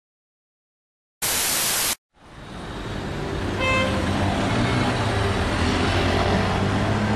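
A short burst of static hiss about a second in, then road traffic fading in: the steady running of slow, queued cars, with a brief car horn toot partway through.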